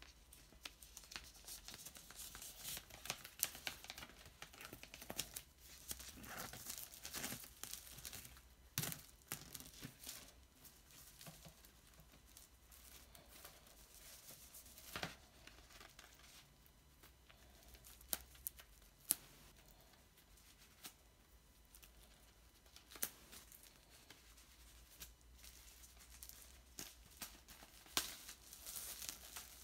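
Faint tearing and crinkling of plastic shrink wrap on a vinyl LP sleeve, with scattered clicks and knocks as the record and wrap are handled.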